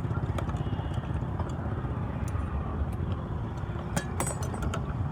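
A steady low rumble, with a few light clicks and taps over it.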